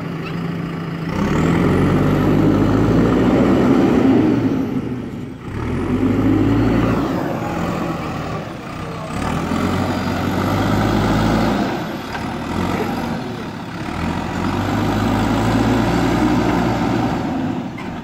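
JCB backhoe loader's diesel engine running and revving up and easing off in several surges as the machine works.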